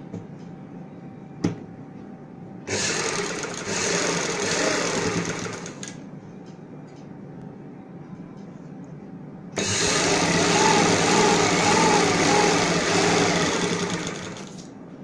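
Electric sewing machine stitching a fabric strip onto a garment in two runs: a short one about three seconds in, then a longer, louder one from about ten seconds that rises and falls in speed. A low motor hum with a single click fills the gaps.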